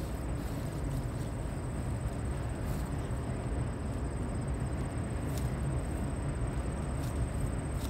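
Steady low rumble of a train, with no clear change in level.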